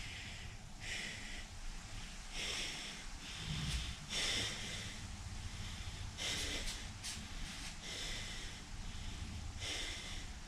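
A man breathing hard under strain while holding a forearm plank, with a noisy breath every one to two seconds.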